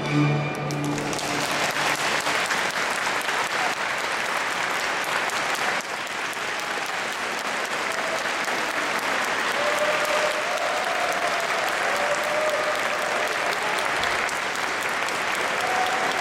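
A small live trio's music ends on its final chord about a second in, and the audience breaks into sustained applause. A few voices sound faintly over the clapping near the middle and end.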